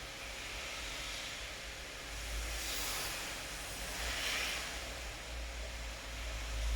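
Steady rain hiss that swells louder twice, about three and about four seconds in, over a low rumble.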